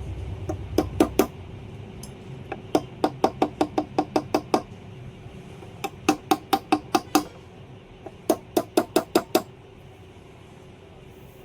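Hammer tapping on metal in quick bursts of about five sharp, ringing strikes a second: three strikes, then three longer runs. A low hum fades out about a second in.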